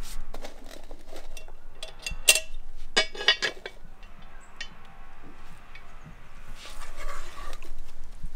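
Metallic clinks and clanks of a cast-iron Dutch oven's lid being worked with a metal lid lifter and lifted off, the loudest ringing clanks about two to three and a half seconds in. A rougher scraping follows about seven seconds in.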